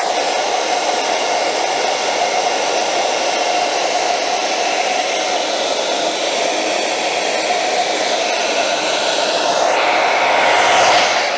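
Hand-held blow dryer running steadily, a continuous rush of air with a whine. It is heating a plastic sole protector so that it softens and can be moulded onto the shoe's sole. The sound grows a little louder and brighter near the end, then drops back.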